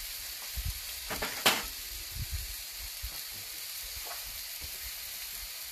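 Chicken strips and sliced peppers sizzling steadily on a hot cast iron griddle in a kamado grill. A few sharp knocks come about a second and a half in.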